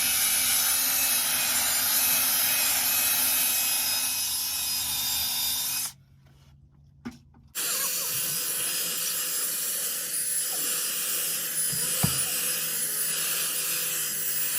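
Electric cleaning tool motor running steadily with a hiss and a steady whine. It cuts out abruptly for about a second and a half some six seconds in, then runs again. A knock comes near the end.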